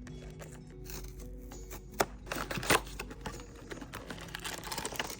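Soft background music, with a blind box's packaging being handled over it: crinkling and a few sharp clicks, the loudest about two seconds in.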